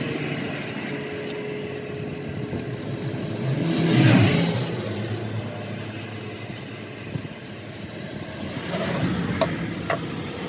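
Motor vehicle traffic, one passing with a swell in loudness about four seconds in, over a steady engine rumble, with a few faint taps near the end.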